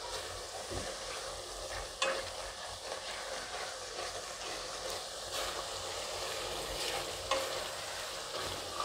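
Silicone spatula stirring a wet red-chilli spice masala that is sizzling in hot oil in a non-stick kadai: a steady sizzle with scraping. A couple of sharp clicks come about two seconds in and again near the end.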